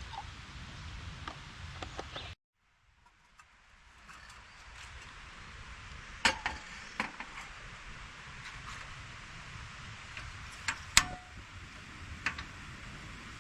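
A few sharp clinks and knocks of small hard objects being handled, the loudest about six and eleven seconds in, over a steady outdoor hiss. About two seconds in the sound cuts out completely, then fades back.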